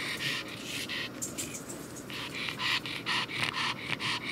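Japanese Chin dog panting fast, about four breaths a second, with a short pause a little over a second in.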